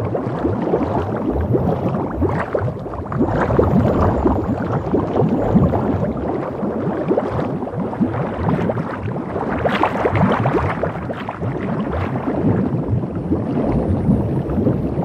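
Water splashing and sloshing, a dense irregular churning with louder surges about four and ten seconds in.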